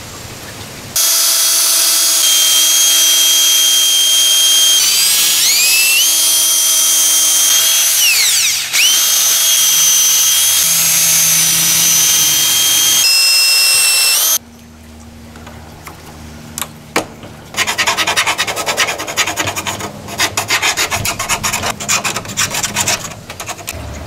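Cordless drill running at high speed, drilling a row of holes along the lock cutout in the RV door edge: a loud motor whine whose pitch sags and recovers twice as the bit bites. Near the end comes a rough, rattling rasp of the bit cutting.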